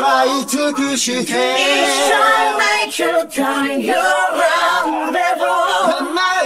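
Isolated vocal track: layered voices singing a melodic line a cappella, with no instruments.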